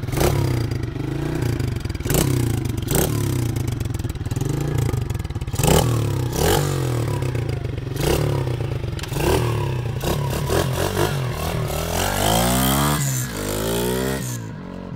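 Small 110cc pit bike engine, newly being run in, running with repeated short blips of the throttle, then revving up and down in quick sweeps as the bike pulls away, fading just before the end.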